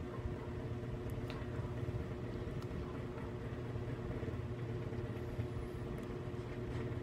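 A steady, low mechanical hum with a few fixed tones, like a motor running, with a few faint ticks.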